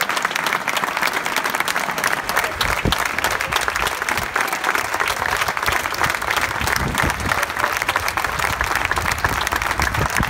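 Audience applauding, a steady dense clapping of many hands, with a couple of low thumps about three and seven seconds in.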